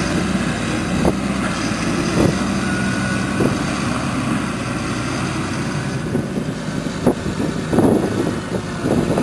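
Diesel engine of a TerraGator 8133 slurry injector running steadily as it works, with a few knocks; from about six seconds in the engine tone fades into a rougher, noisier sound with more knocks.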